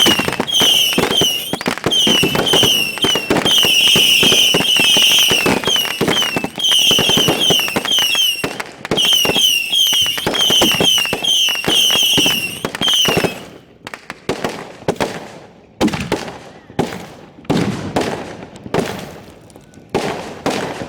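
Fireworks finale fired at close range: a dense barrage of rapid bangs and crackle, laced with many short, high chirping tones repeating several times a second. It breaks off about thirteen seconds in, followed by scattered single loud bangs roughly a second apart.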